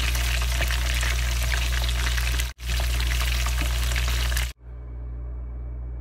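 Chicken pieces frying in hot oil in a pan, a dense steady sizzle and crackle during the second fry, with a brief break about two and a half seconds in. About four and a half seconds in the frying sound cuts off suddenly, leaving only a quiet low steady hum.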